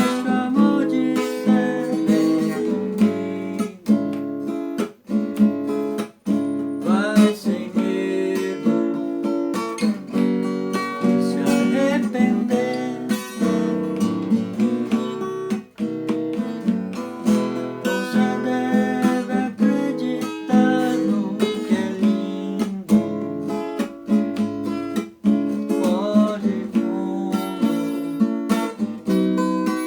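Acoustic guitar playing, a mix of strummed chords and plucked melody notes, with a few bent notes.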